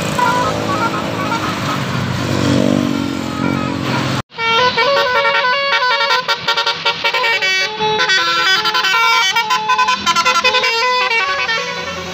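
Telolet bus horn, a multi-tone air horn, playing quick melodies of short stepped notes over a running bus engine. It breaks off suddenly about four seconds in, then starts again with a longer, faster run of notes.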